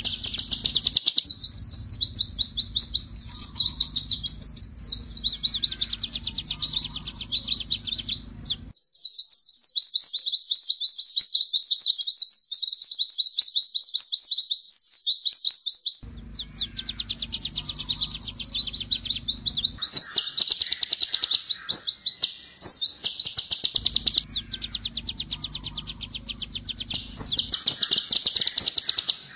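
Purple-throated sunbird (kolibri ninja) singing a long, rapid run of sharp, high-pitched chirps and trills, with brief breaks.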